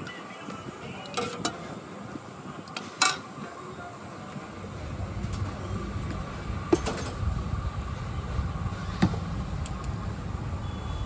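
A few sharp clinks of steel spoon and knife against steel plates and bowls as a paratha plate is served, over street-stall background noise whose low rumble comes in about four and a half seconds in.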